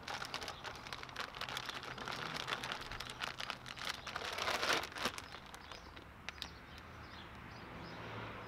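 Plastic bag of shiitake grain spawn crinkling and rustling as it is handled and spawn is poured out. The crackling dies down about five seconds in, leaving a few faint clicks.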